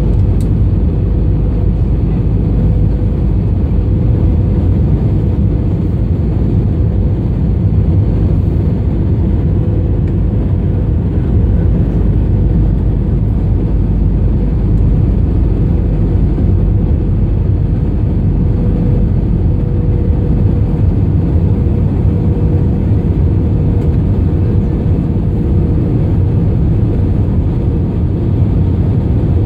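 Steady cabin noise heard from a window seat over the wing of an Airbus A320 descending on approach: engine and airflow noise, mostly low and even, with a faint steady tone above it.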